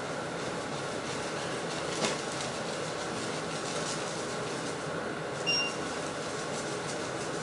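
Oil sizzling steadily in a frying pan, with a sharp click about two seconds in and a brief high beep about five and a half seconds in.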